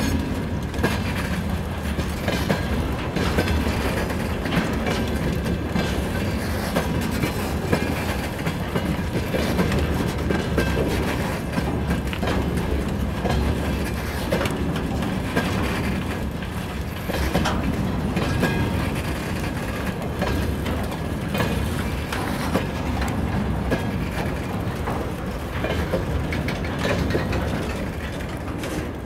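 Freight train of open-top gondola wagons rolling past, with a steady low rumble and wheels clicking and clattering irregularly over the rail joints.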